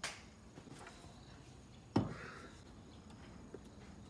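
A single solid knock about two seconds in, something set down on a wooden table, followed by a brief soft rustle of cloth.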